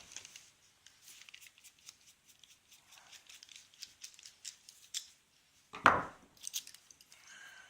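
Small metal clicks and taps from handling a padlock and lock-picking tools close to the microphone, with one louder clunk about six seconds in.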